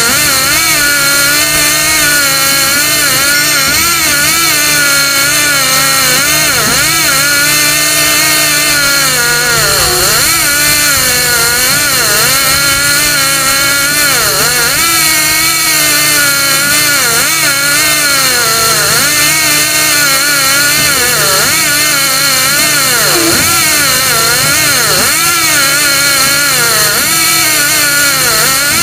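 Air-driven pilot-ladder reel motor running under load as the ladder is heaved up, its whine wavering up and down in pitch over a steady hiss. Its air pressure is too weak for it to haul the ladder alone.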